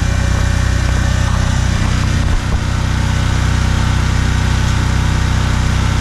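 DuroMax XP4850EH portable generator's single-cylinder engine running steadily on propane, a loud, even engine drone.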